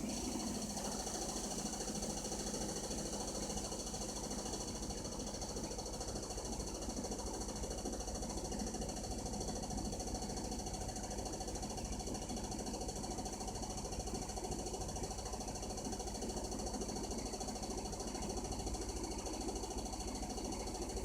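Hitachi BeatWash BW-7SV washing machine in its spin cycle, running steadily with a high whine and a fast, continuous rattling knock. This is the abnormal spin noise that the owner takes to mean the machine needs repair.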